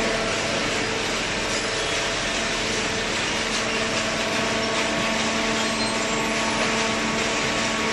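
Hydraulic cardboard baler running: a steady machine noise with a faint hum from its pump motor, unchanging throughout.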